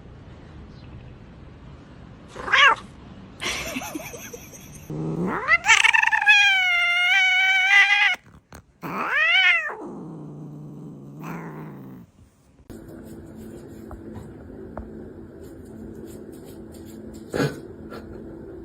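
Domestic cat vocalising: a short meow, then a long, wavering, drawn-out yowl of about two and a half seconds, followed by a few shorter meows.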